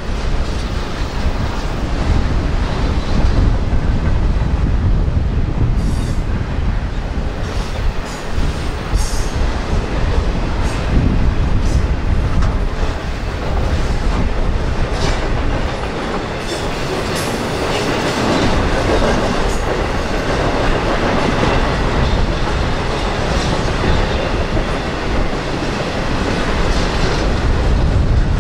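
Freight train cars rolling past, steel wheels clicking over rail joints, with a steady rumble and scattered brief sharp clicks and squeals.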